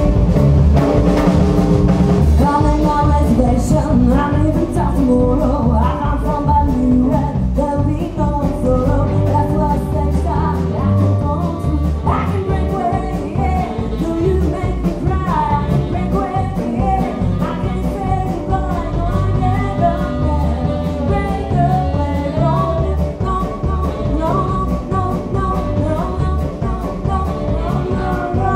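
A live band playing: female lead vocal over electric guitars, saxophone and drum kit, with a steady beat. The singing comes in about two seconds in.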